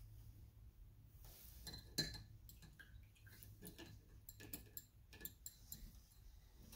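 Faint scattered clicks and clinks of a paintbrush against its rinse-water container as the brush is dipped and cleaned, the loudest about two seconds in.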